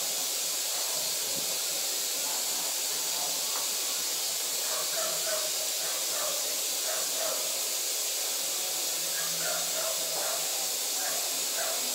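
A steady hiss like escaping steam, with faint short higher sounds scattered through the middle.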